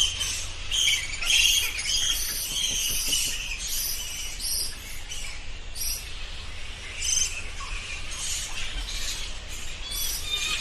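Bats squeaking: a rapid run of short, high-pitched squeaks, densest in the first few seconds and coming in thinner clusters later, over a faint steady low hum.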